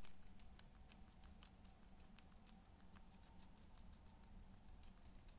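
A guinea pig chewing fresh vegetables: quiet, irregular crisp crunching clicks, a few a second, over a low hum.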